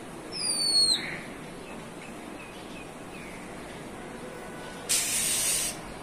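A bird's high whistled call, falling in pitch and lasting under a second, followed by a few faint chirps. Near the end comes a hiss of about a second.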